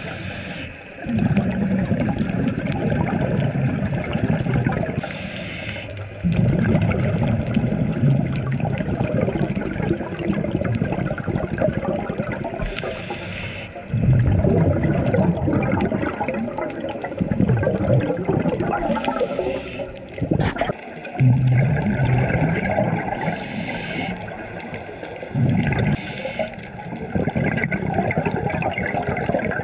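Scuba regulator breathing heard underwater. Each breath is a short hiss of inhalation followed by a few seconds of rumbling exhaled bubbles, and the cycle repeats several times.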